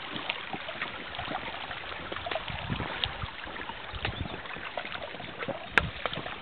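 Footsteps on the stone slabs and loose stones of a wet trail, with irregular small clicks and one sharper click near the end, over a steady rushing noise.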